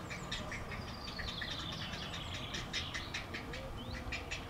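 Grey heron chicks in the nest calling to beg for food: quick runs of short ticking calls, with one drawn-out call falling in pitch about a second in.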